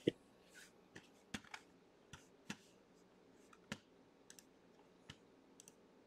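Faint computer mouse clicks, about a dozen short, sharp clicks at uneven intervals.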